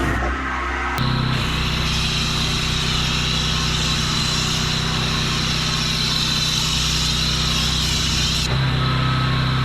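Pressure washer engine running steadily, with a hiss of water spray that starts about a second in and drops away near the end.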